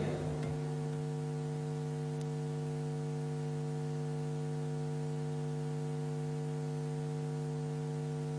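Steady electrical mains hum: a low, unchanging buzz with many evenly spaced overtones, typical of a ground-loop hum in an audio signal chain.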